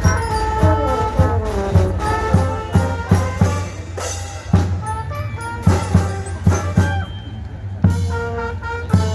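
School band of brass and drums playing a tune: horn melody over steady drum beats, easing off briefly about seven seconds in before the drums come back.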